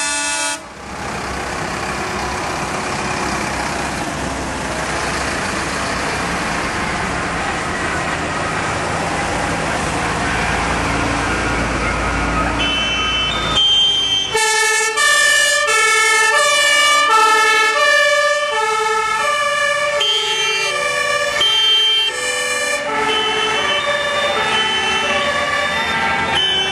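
Fire engines in a slow procession. First comes a dense, loud wash of noise with a deep truck-engine rumble that builds as a truck draws near. About halfway through, several two-tone sirens take over, each alternating between a high and a low note, with the sets overlapping out of step as the fire trucks pass close by.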